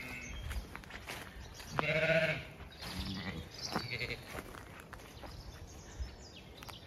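Zwartbles sheep bleating: one clear, wavering bleat about two seconds in, with fainter, shorter calls around it.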